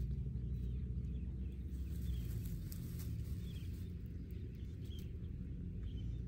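Outdoor field ambience: a steady low rumble of wind on the microphone, with faint short bird chirps about once a second.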